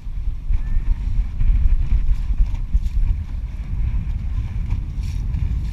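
Wind buffeting the camera microphone, a heavy, uneven low rumble.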